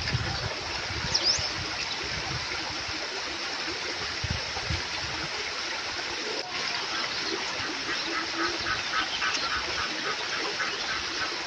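Small creek flowing steadily over stones. About eight seconds in, an animal gives a rapid run of short repeated calls for a couple of seconds.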